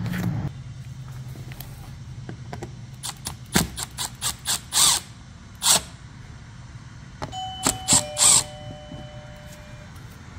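Phillips screws being backed out of a generator's plastic side panel with a screwdriver: a run of sharp clicks and taps, with a few short ringing tones about seven to ten seconds in.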